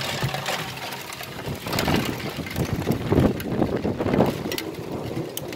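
Heavy hail shower: large hailstones pelting down in a dense, rapid clatter of impacts, loudest in the middle.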